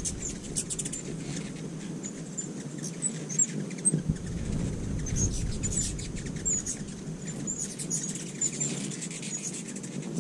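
Many ruby-throated hummingbirds calling: short, high chips and squeaky twitters scattered throughout, over the low whir of their wings as they hover and chase around the feeders.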